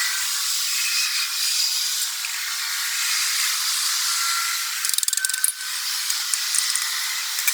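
Steady metalworking noise from machining a worn toothed part, with a quick rattle of clicks about five seconds in.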